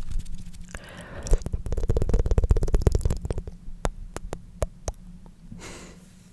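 Tongue fluttering close to the microphone: a fast train of flapping clicks that is densest a second or two in and thins out later. A short breathy hiss comes twice, once near the start and once near the end.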